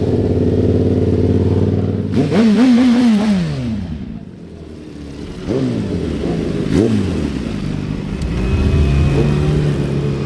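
A car engine idling, then revved: a long rise and fall in pitch about two seconds in, and two quick blips near seven seconds, before it settles back to idle.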